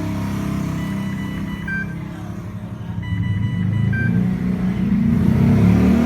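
Dräger Oxylog 2000 plus ventilator alarm sounding twice, about two seconds apart. Each time it is a tone of about a second that ends in a short higher beep: the alarm for an oxygen supply not yet connected. Under it runs a louder low rumble that swells near the end.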